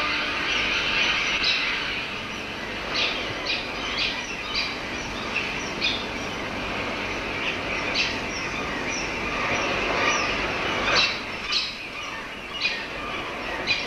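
A tern colony calling: a dense din of overlapping bird cries, with short sharp calls standing out at irregular intervals.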